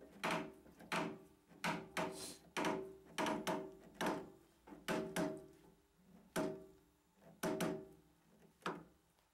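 A new 6004 arbor bearing being pressed into the cast trunnion of a Ridgid R4511 table saw with a parallel clamp, the clamp screw turned in short strokes. About a dozen short, irregularly spaced metallic clicks, each with a brief ring that dies away quickly.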